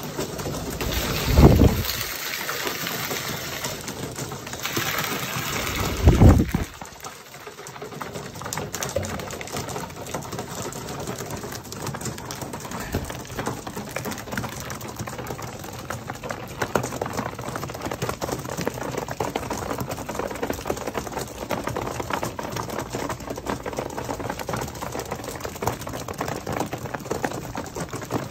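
Racing pigeons pecking mixed grain from a wire-topped feeder: a dense, rapid patter of beak taps on seed. Two loud flurries of wing flapping come near the start, about a second and a half in and again about six seconds in.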